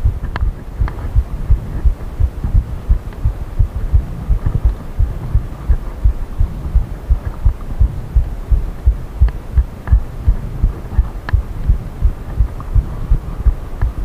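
Hardtail mountain bike riding over a rough forest trail, heard through a bike-mounted camera: a low, uneven rumble of thumps, about three a second, with a few sharp clicks.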